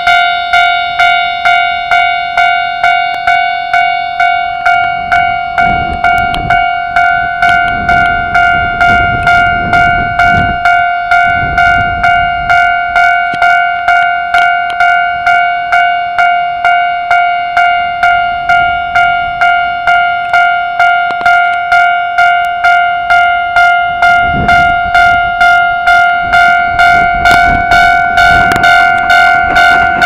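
Japanese level-crossing warning bell ringing steadily, about two ringing strokes a second, signalling an approaching train. Near the end the low rumble of the Keikyu 1500-series train passing the crossing rises underneath.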